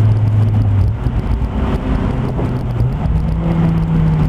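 Honda S2000's four-cylinder engine running through an HKS exhaust with a test pipe in place of the catalytic converter, the car under way. Its steady note eases off about a second in, then rises in pitch about three seconds in and holds.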